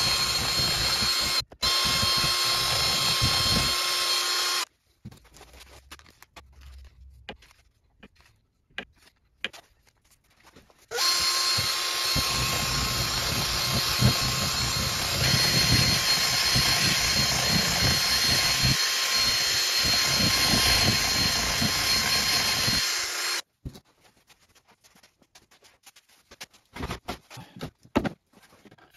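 Cordless drill spinning a paddle mixer in a plastic cup of deep-pour epoxy resin, stirring in the hardener and blue mica powder. It runs steadily with a whine for about four and a half seconds, with a brief stop early on. After a quiet gap with a few light clicks it starts again about eleven seconds in and runs for about twelve seconds, stopping several seconds before the end.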